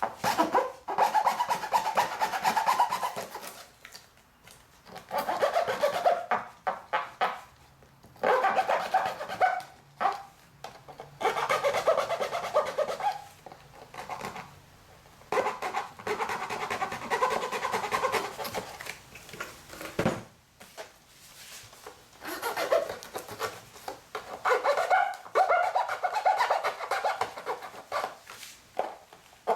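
Fine-toothed razor saw cutting through the plastic Robart-type hinges of a model airplane's tail stabiliser: quick back-and-forth rasping strokes in repeated spells of a few seconds, with short pauses between them.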